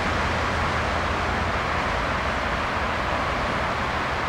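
Diesel locomotive running light and moving away, its engine and running gear a steady rumble that slowly eases off.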